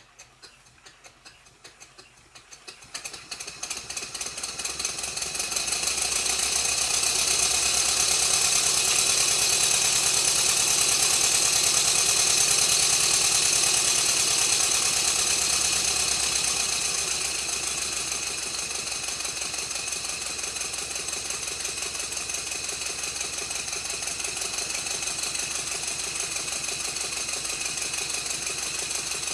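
Stuart Twin Victoria twin-cylinder horizontal model steam engine running: a fast, even beat that builds up over the first few seconds, holds, then eases back a little about halfway and runs steady. It has been freshly re-oiled with its timing tweaked, and it sits on bubble wrap so the workbench does not amplify its mechanical noise.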